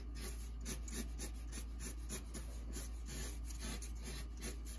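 Sharpie marker scratching over a large sheet of drawing paper in quick, repeated loose sketching strokes, over a low steady hum.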